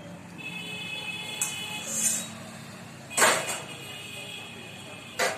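Steel serving spoon clinking against a steel plate and pan, with a brief scrape about two seconds in. There are a few sharp clinks, the loudest about three seconds in and another near the end.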